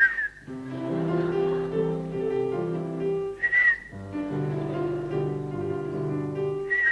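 Instrumental accompaniment playing phrases, stopping each time for a single short whistled note that rises and falls. This happens three times: at the start, about halfway, and near the end. The whistler is a performer in a parody whistling act.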